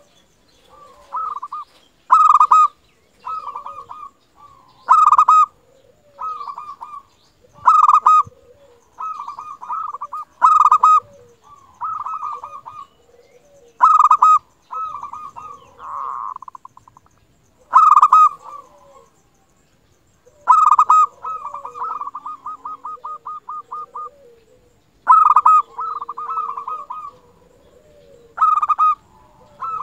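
Zebra dove (perkutut) cooing: a bubbling, staccato phrase repeats about every three seconds, each opening with a sharp, bright note, with softer lower notes in between. A little past two-thirds of the way through, one phrase runs into a fast, even string of notes.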